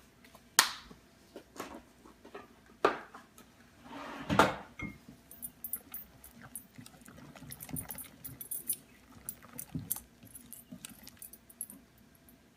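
A whisk beating chickpea-flour batter in a glass bowl: a few sharp knocks against the bowl in the first seconds, the loudest about four seconds in, then quick light clinking and tapping against the glass as it whisks.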